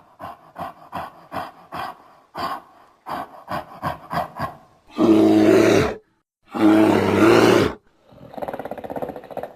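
Silverback gorilla creature sound effect layered from animal and monster roars: a run of about ten short grunting calls, then two loud roars of about a second each, then a rougher, quieter growl near the end.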